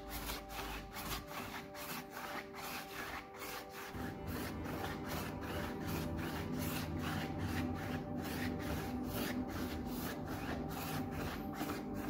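Quick repeated rubbing strokes, about three or four a second, growing fuller about four seconds in, over quiet background music.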